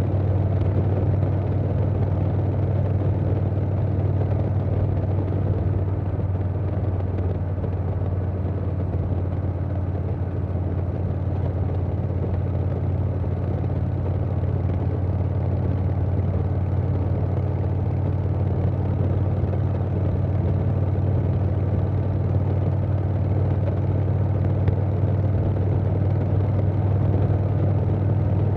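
2020 Harley-Davidson Softail Standard's Milwaukee-Eight 107 V-twin running steadily through a Vance & Hines Big Radius 2-into-2 exhaust, with a deep, even exhaust note and no change in revs.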